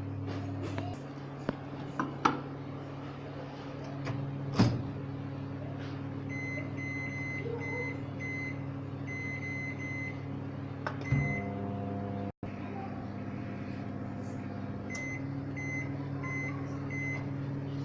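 Microwave oven running with a steady hum while reheating the mixture. Several sharp clicks and knocks come in the first few seconds, and another near the middle. Two runs of short high electronic beeps sound, one in the middle and one near the end.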